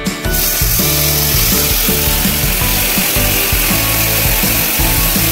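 Chicken Manchurian sizzling on a hot sizzler plate: a loud, even hiss that starts suddenly a moment in and keeps going, heard over background music.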